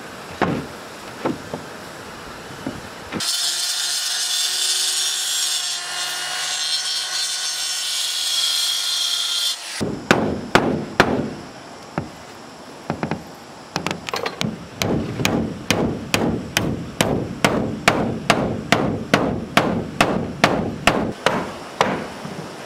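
Woodworking: a few knocks, then a power tool runs steadily from about three seconds in and cuts off at about ten seconds. A long run of blows on wood follows, over twenty strikes at about two or three a second.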